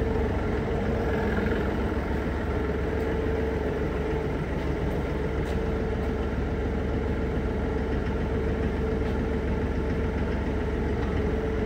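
Toyota forklift's engine idling steadily.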